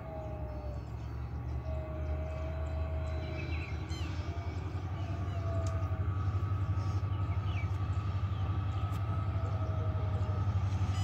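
WDG4 diesel-electric freight locomotive, with its two-stroke EMD 16-cylinder engine, approaching with a steady low rumble that grows louder over the first half and then holds.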